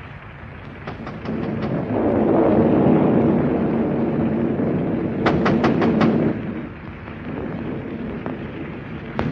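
A long rolling rumble of thunder that swells about two seconds in and dies away after six seconds, on an old, hissing film soundtrack with a few sharp crackles near its loudest point.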